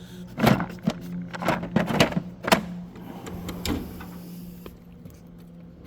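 Several sharp clicks and knocks of tools and cases being handled in a metal toolbox drawer, over a steady low hum; the knocks stop about halfway through.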